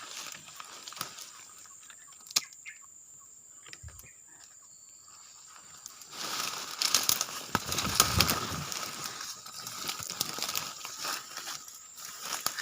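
Rustling and crackling, faint with scattered clicks at first, then louder and busier from about six seconds in.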